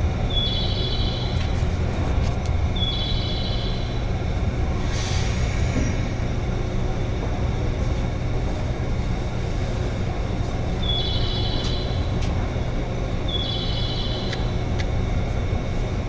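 Steady low hum inside a JR 201-series electric commuter train standing at a station. A short burst of air about five seconds in, and four short high chimes: two near the start and two more around eleven to fourteen seconds in.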